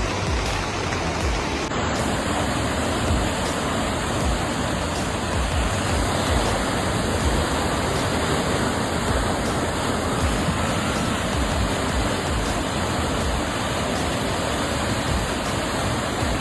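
Floodwater rushing steadily, a continuous roar of fast-flowing water with low rumbling buffets on the microphone.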